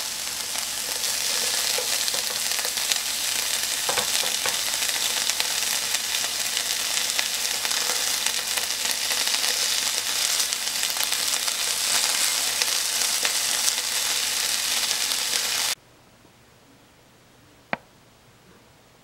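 Sauce-coated deodeok root slices sizzling as they pan-fry in a nonstick frying pan, with a few light taps of chopsticks turning the pieces. The sizzle cuts off abruptly near the end, leaving a faint hiss and a single click.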